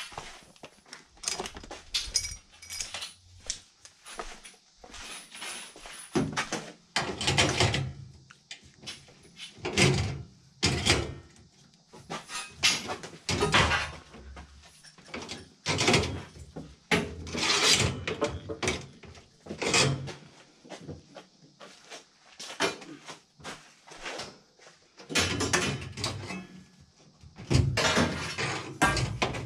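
Irregular metallic clanks, clicks and rattles of hand tools and furnace sheet metal being handled around the blower housing.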